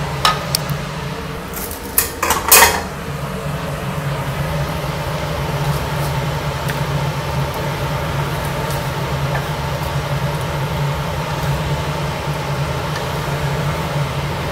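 Slotted spatula knocking and scraping against the pan while stirring a thick prawn and petai sambal. There are a few sharp clatters in the first three seconds, the loudest about two and a half seconds in. A steady low hum runs underneath throughout.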